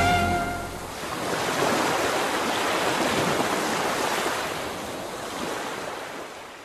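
Ocean surf washing onto a sandy beach: a steady rushing wash that swells about a second in and slowly fades out near the end. The last of the song's music dies away in the first second.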